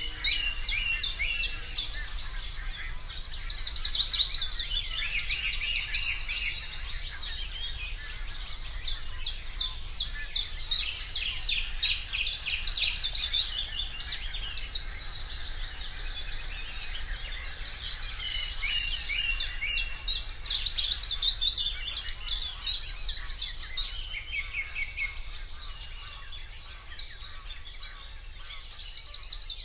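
Eurasian reed warbler singing: a long, near-continuous chattering song of rapid repeated notes in short runs, changing phrase every second or so, with hardly a pause.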